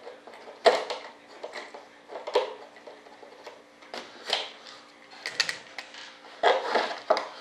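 Irregular clicks, taps and light knocks of hands handling a model jet wing and its parts on a workbench, with a cluster of knocks near the end, over a faint steady hum.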